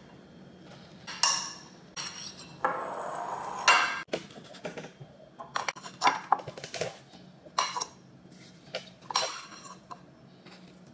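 A metal fork clinking and tapping against a glass baking dish and a ceramic bowl as fruit pieces are moved into the bowl, with a brief rustle of plastic wrap about three seconds in.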